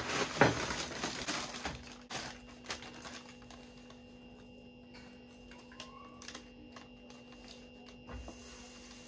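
Crinkling and rustling of a shopping bag being handled as bread is taken out of it, loudest in the first couple of seconds, then scattered light clicks and handling noises over a faint steady hum.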